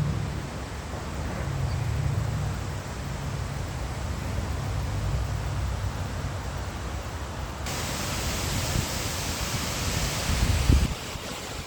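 Strong wind gusting, with a low rumble of wind buffeting the microphone; from about two-thirds of the way in, a brighter hiss joins it.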